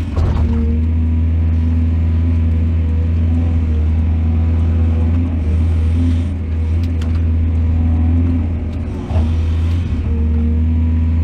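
Diesel engine of a mining excavator running steadily, with a strong low hum and a few sharp metallic ticks around the middle.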